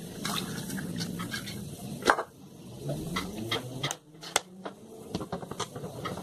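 Dishes being washed by hand at a kitchen sink: a sponge scrubs a pan and a plate, with sharp clatters of dishware knocking together, the loudest about two seconds in.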